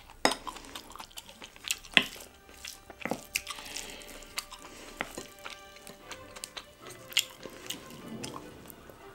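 Eating utensils clicking and tapping against dishes in scattered sharp strikes, the loudest near the start and about two seconds in, over soft background music.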